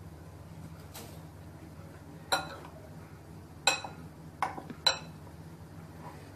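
Metal spoon clinking against a ceramic bowl while stirring chopped vegetables: four sharp, ringing clinks between about two and five seconds in, over a steady low hum.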